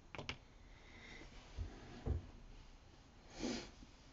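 Quiet handling of a wet sheet of paper on a tabletop: a couple of light clicks at the start and two soft taps around the middle, then a short breath near the end.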